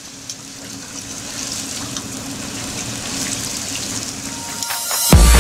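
Hot oil sizzling and crackling around a breaded katsu cutlet in a deep-fryer basket, growing steadily louder. About five seconds in, an electronic dance track cuts in with a heavy bass hit, the loudest sound.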